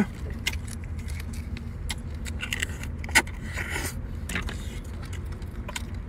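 Shell of a cooked red stone crab cracking and crunching as it is pulled apart by hand and chewed: a string of sharp cracks and clicks, one louder snap about three seconds in, over a steady low rumble.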